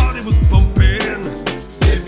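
Upbeat hip-hop style background music with a heavy, steady drum beat and a brief vocal line.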